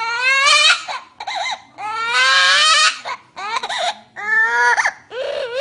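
A parrot mimicking a crying baby: a run of about six wailing, sobbing cries with rising and wavering pitch, the longest about two seconds in.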